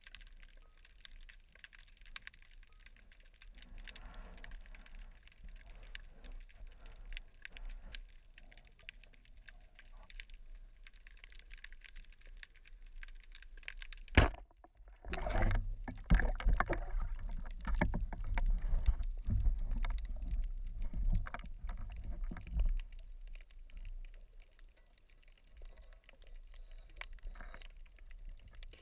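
Underwater sound heard through an action camera's waterproof housing: a steady crackle of faint clicks. About fourteen seconds in there is one sharp knock, followed by several seconds of louder, low churning water noise that then dies back down.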